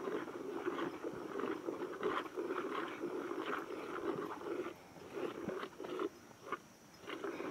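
A cow being hand-milked: jets of milk squirting in quick, repeated spurts into a plastic jerrycan as the teats are squeezed.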